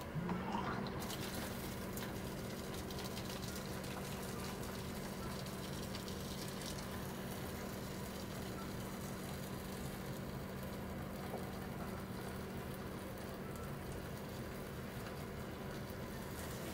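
Zojirushi electric hot-water pot dispensing near-boiling water: its pump motor hums steadily while the water pours in a stream into a plastic instant-noodle tray.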